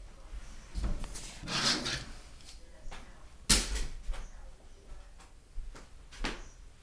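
Scattered knocks and clatter of objects being handled off camera: a rustling clatter about a second in, a sharp knock near the middle, and a lighter knock near the end.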